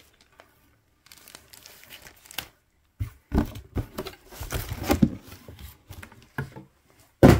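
Crumpled newspaper packing rustling and crinkling as it is pulled out of a cardboard box, in irregular bursts that grow louder after a quiet start, with one short, loud crackle near the end.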